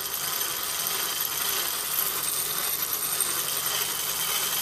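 A steel knife blade being ground on a spinning sandpaper-covered wooden drum driven by an old hand drill converted into a sander. It makes a steady abrasive hiss.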